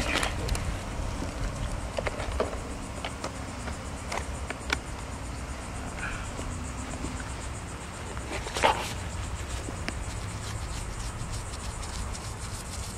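Outdoor ambience: a steady low rumble with a faint high hum, broken by a few short clicks and knocks, the loudest about two-thirds of the way through.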